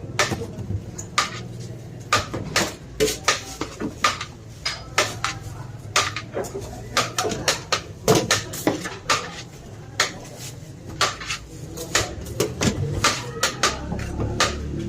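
Metal utensils clinking and clanking against pots and plates in quick, irregular strikes, as when biryani is dished out at a stall.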